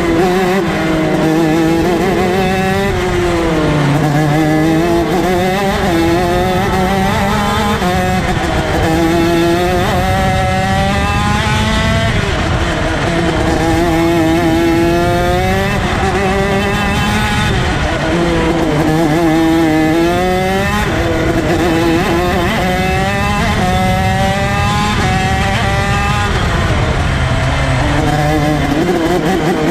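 ROK Shifter 125 cc two-stroke kart engine racing hard, its pitch climbing steeply through the revs and dropping back at each gear change or braking, over and over.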